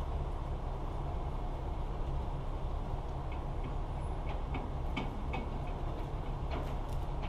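A heavy engine running steadily at low speed, with scattered sharp clicks and creaks from about three seconds in.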